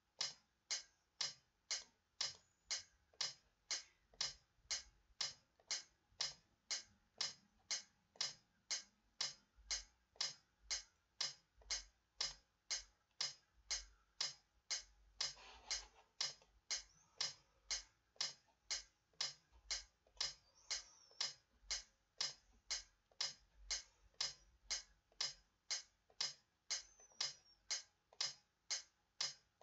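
Metronome clicking steadily at about 80 beats a minute, with no instrument playing over it.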